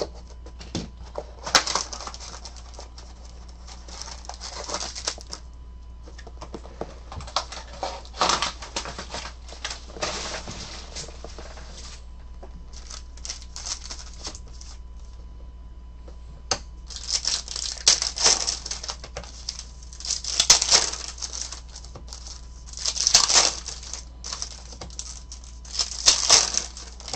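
Trading card box and foil packs being torn open by hand, wrappers crinkling and ripping in repeated bursts, with cards shuffled between. The bursts come thicker and louder in the second half.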